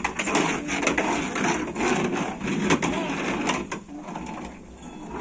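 Toy backhoe excavator rattling and clicking, with plastic parts knocking and scraping in a busy, irregular run.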